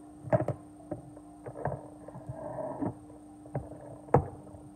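Handling noise of a smartphone on a hard tabletop: scattered knocks and taps as it is turned over, set down and pressed, with two louder knocks about half a second in and near the end. A steady low hum runs underneath.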